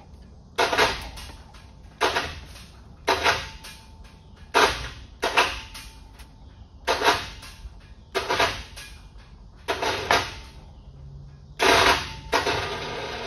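Hand-held pneumatic air tool run off a shop air hose, triggered in about ten short bursts roughly a second apart, the last one longer, working on the fasteners at the pinion end of a Ford Model A differential.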